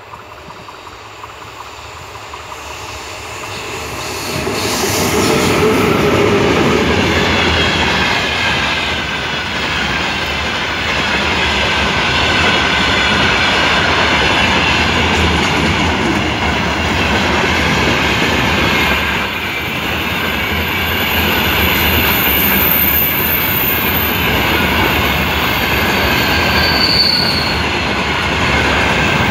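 Heavy iron ore pellet freight train, hauled by two VR Sr1 electric locomotives, approaching and passing close by. The sound grows over the first four or five seconds as the locomotives arrive, then settles into a steady rolling rumble of the loaded ore wagons' wheels on the rails. Over it runs a high wheel squeal that wavers in pitch.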